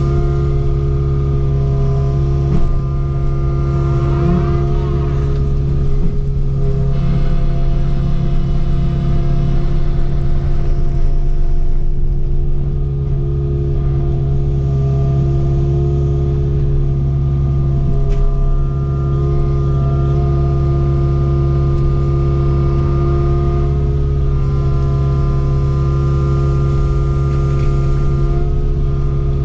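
Kubota KX057-4 excavator's diesel engine running steadily under hydraulic load while it works logs, with a brief whine that rises and falls about four seconds in and a few faint knocks.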